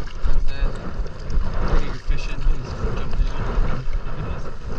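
Kayak paddling: a double-bladed paddle dipping on alternate sides, water splashing and dripping off the blades, with wind buffeting the microphone.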